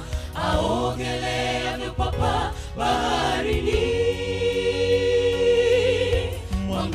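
A mixed choir of men and women sings a Swahili gospel song into microphones over a steady low accompaniment. About halfway through they hold one long chord.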